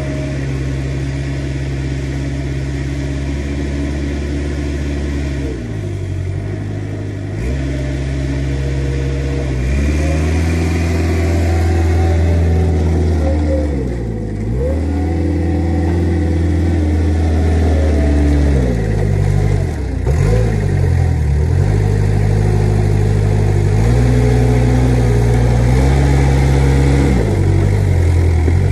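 Manitou forklift engine running, its revs dropping and climbing back several times as it drives up and manoeuvres. It grows louder as it comes alongside.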